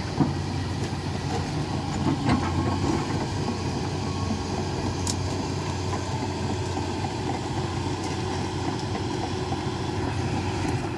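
Excavator's diesel engine running steadily, with a few brief knocks or clanks.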